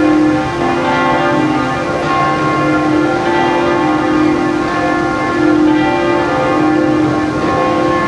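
Several bells ringing together without pause, their tones at different pitches overlapping in a steady wash of ringing.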